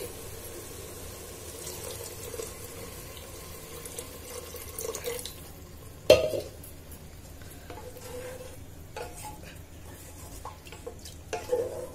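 Water poured into a pressure cooker over fried rice and split moong dal, and stirred in with a wooden spatula against the pot. A single sharp knock about six seconds in, with a few lighter clicks later.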